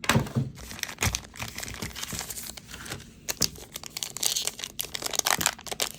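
Trading card pack wrapper being torn open and crinkled, an irregular run of crackles and rustles.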